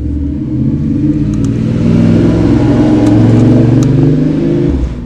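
Motorcycle engine riding past, revving as it accelerates: it builds to its loudest about three to four seconds in, then falls off sharply near the end.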